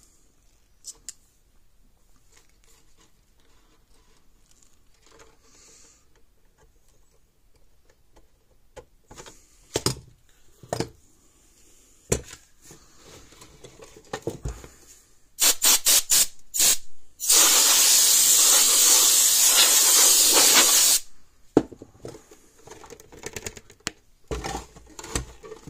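An aerosol spray can hissing: a quick run of short spurts, then one steady spray of about four seconds. Light handling clicks come before it, and a knock of the plastic case comes near the end.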